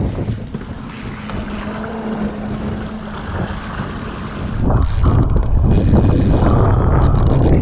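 Motorboat underway at sea: a steady engine hum with wind noise on the microphone, turning much louder and noisier about two-thirds of the way through.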